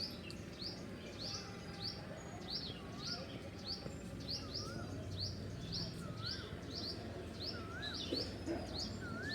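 A small bird chirping steadily in quick short high notes. From a few seconds in, an Asian koel calls a series of whistled notes, each a little higher than the one before.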